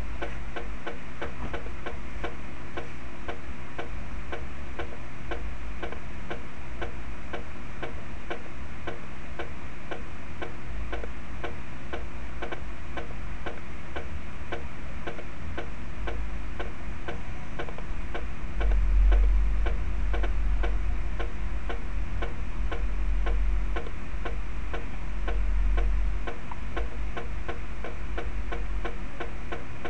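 Snare-drum sticking exercise played back by notation software: an even, unbroken run of ticking strokes in steady time. A low rumble swells in under it for several seconds in the second half.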